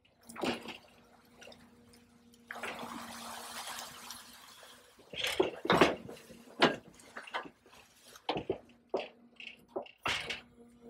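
Canal water splashing and pouring around a boat-mounted hydraulic excavator's grab as it dredges the canal bed. There is a gush of running water for a couple of seconds, then a run of sharp splashes and drips.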